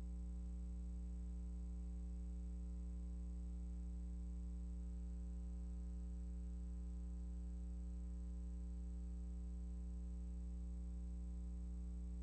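Steady low electrical hum with a faint high-pitched whine above it, unchanging: the noise floor of a film-to-video transfer with no soundtrack of its own.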